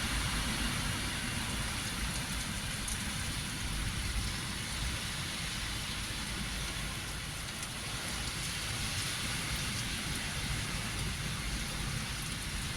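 Hurricane rain and wind: a steady hiss of rain with a low rumble underneath.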